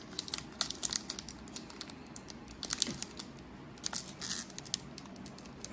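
Plastic wrapper of a hockey card pack crinkling and crackling in irregular bursts as fingers pick and pull at its sealed seam, trying to tear it open; the stiff wrapper resists being torn by hand.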